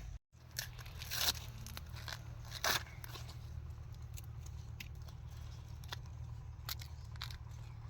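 Dry corn husks and leaves crackling and tearing as they are handled, with scattered sharp crackles, a couple of them louder, over a steady low rumble.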